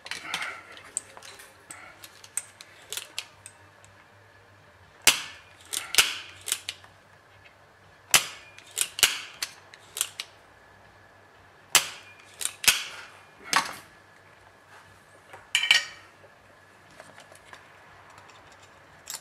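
A dozen or so sharp clicks and snaps at irregular intervals, some in quick clusters, made while desoldering a MOSFET from a switch-mode power supply circuit board.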